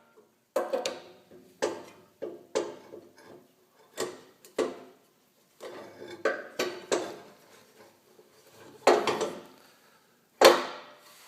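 Irregular metal clanks and knocks, each with a brief ring, as a steering rack and pinion is handled and lifted up into place on a front crossmember; the two loudest come near the end.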